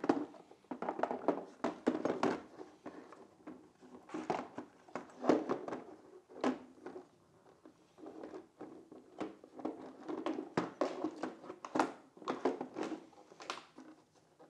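Motorcycle airbox being pushed and worked by hand into the frame: repeated irregular knocks, clunks and scraping as it bumps against the frame in a tight fit.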